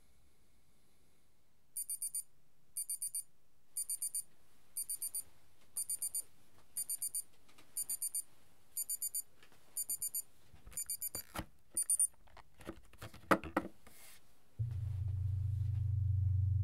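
Digital alarm clock going off: high-pitched beeps in quick groups of four, about one group a second. About twelve seconds in the beeping stops amid a few knocks and a sharp thump, and a low steady hum starts near the end.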